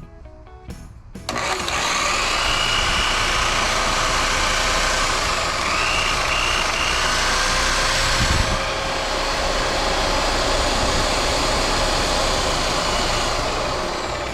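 Electric buffer switched on about a second in, its motor running steadily with a faint whine. The machine works.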